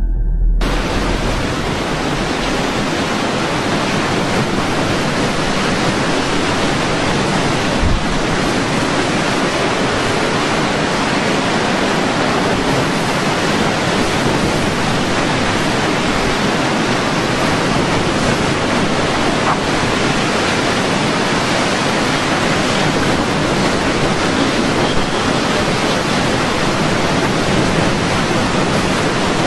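Steady, loud rushing noise of storm wind and water, cutting in abruptly about half a second in and holding level without a break.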